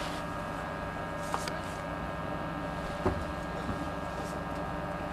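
Steady machinery hum aboard a cargo ship, holding several fixed tones. A faint click comes about a second and a half in, and a small knock about three seconds in.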